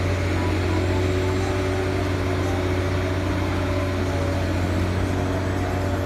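Diesel engine of a large telescopic-boom crawler crane running steadily: an even, low hum.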